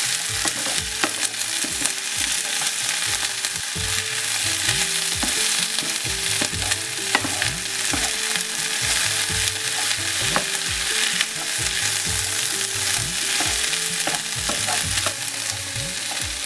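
Wooden spatula stirring a potato, green pea and cashew filling in a frying pan: a steady sizzle with frequent scrapes and knocks of the spatula against the pan.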